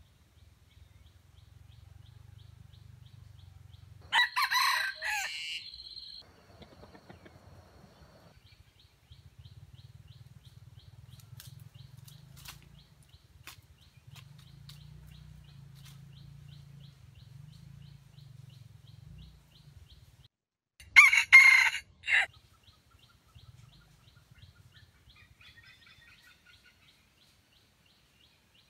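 Red junglefowl rooster crowing twice: a short crow about four seconds in and another, broken into a few loud pulses, about twenty-one seconds in.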